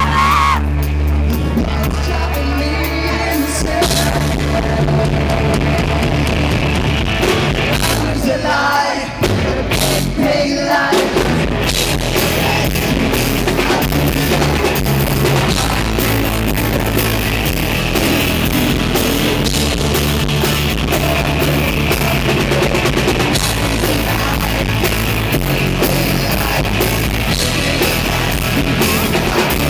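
Live rock band playing: electric guitars, bass and drum kit with a man singing into the microphone. The music thins out briefly about nine seconds in, then the full band comes back.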